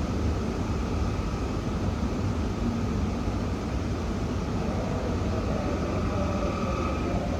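Steady hum and rumble of a Shinkansen E2 series train at the platform, with a faint steady whine. Further faint whining tones come in about five seconds in.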